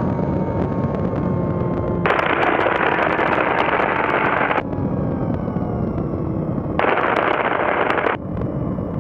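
Light aircraft in flight, heard from the open cockpit: the engine runs steadily under heavy wind and airflow noise. The wind noise twice cuts in sharply louder for a couple of seconds and then drops back, and the engine note sags slightly in between.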